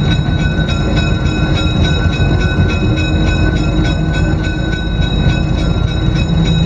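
Diesel engines of a GE 44-ton switcher locomotive running steadily, with a steady high whine over a dense low rumble. The sound is heard from inside the cab as the locomotive rolls slowly along the yard track.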